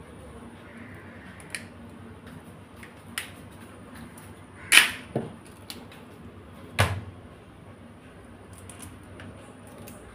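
Raw crabs pulled apart by hand over a pot of crab pieces: a handful of short sharp cracks and knocks of shell, the loudest a little before halfway and another about two seconds after it.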